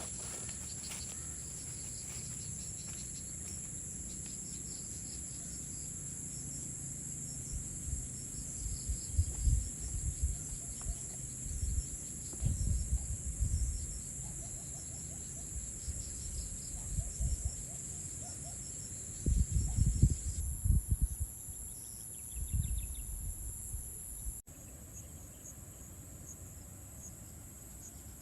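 Crickets or other insects shrilling steadily in high, unbroken tones. From about a third of the way in, irregular low rumbles and thuds come and go, the loudest sounds here. The insect sound shifts and drops in level suddenly about three-quarters of the way through.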